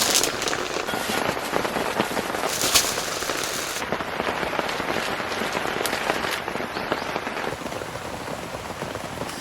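Heavy rain pattering steadily, a dense spatter of drops, with a couple of louder sharp hits at the start and about three seconds in.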